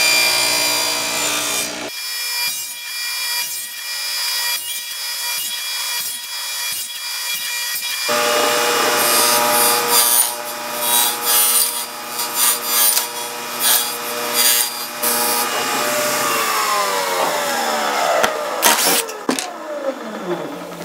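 Table saw running as its blade cuts a 1/8-inch PVC plastic square pivoted on a crosscut sled, with repeated short cuts as the corners are trimmed off in passes. Near the end the saw is switched off and its pitch falls as the blade winds down.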